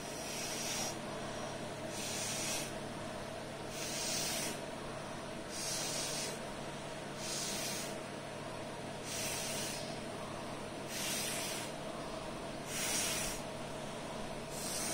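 Short puffs of breath blown through a paper straw onto wet paint drops, each a soft hiss, about one every second and a half to two seconds, nine in all.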